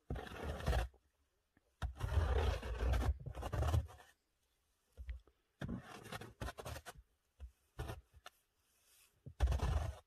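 Snow shovel scraping and pushing through snow in repeated strokes: one long push of about two seconds, then several shorter scrapes.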